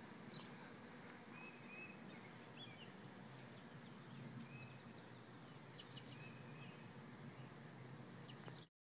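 Faint outdoor air, near silent, with a few short, distant bird chirps scattered through it.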